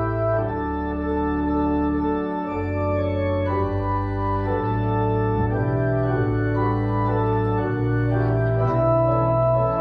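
Organ playing a postlude in held chords, the notes changing every second or so over a shifting low bass line.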